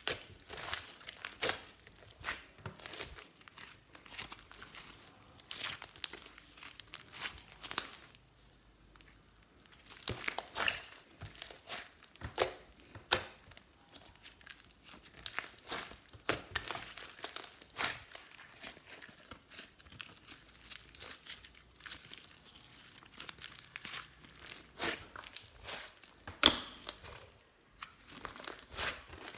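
Hands kneading and stretching clear slime, giving irregular sticky pops, clicks and crackles with a couple of short pauses.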